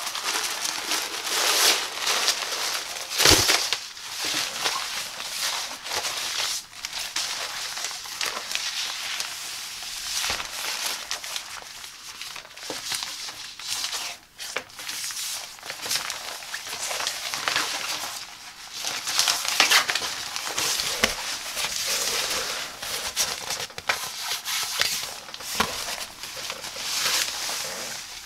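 Thin silver reflective fabric of a car windshield sun shade rustling and crinkling as hands unfold, spread and smooth it, in uneven swells. There is one sharp snap about three seconds in.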